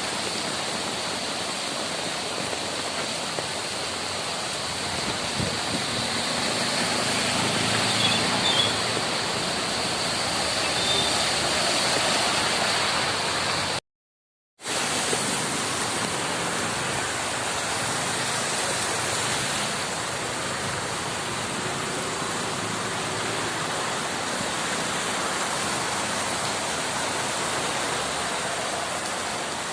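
Heavy rain and running water: a steady, even hiss that cuts out briefly about halfway.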